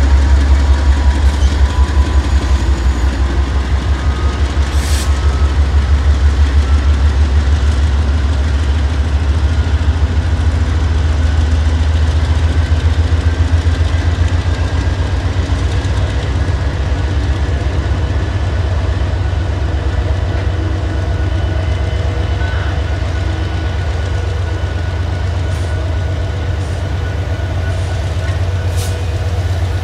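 A line of Norfolk Southern diesel-electric locomotives, GE Dash 9s at the head, passing slowly under power. Their engines make a loud, deep rumble that pulses rapidly, with a few brief high-pitched clicks from the running gear.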